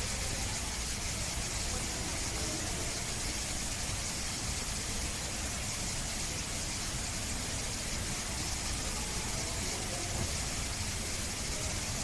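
Steady background hiss with a low rumble underneath, unchanging throughout.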